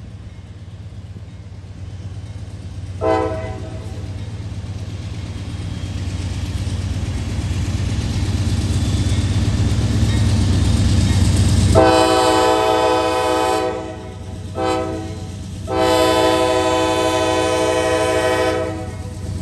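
Approaching CSX freight train's GE diesel locomotive, its engine rumble growing as it nears, sounding a multi-note air horn: a brief blast about three seconds in, then long, short and long blasts in the second half.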